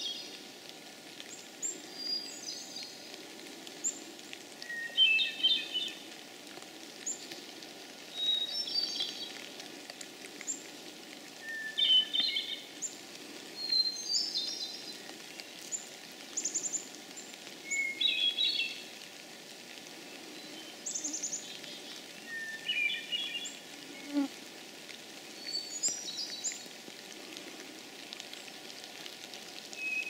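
Hermit thrush singing a series of clear, fluty phrases, repeated about every three seconds. Each phrase opens on a short held note and breaks into a higher, rippling flourish, and each is pitched differently from the last. A steady low background hiss runs underneath.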